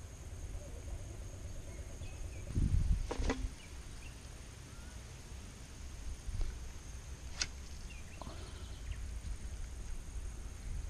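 Quiet outdoor ambience with a few faint bird chirps. A dull bump comes about two and a half seconds in, and two sharp clicks, one around three seconds in and one around seven.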